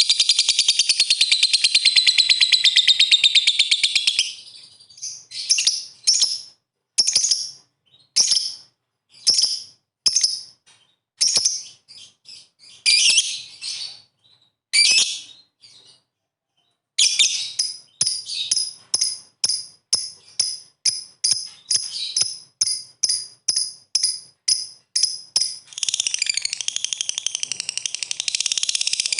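Lovebird calling: a dense, rapid, high chatter that breaks into single sharp chirps about one a second, pauses briefly around the middle, then picks up again with chirps quickening to two or three a second and running back into continuous chatter near the end. This is the lovebird's long 'ngekek' chattering call.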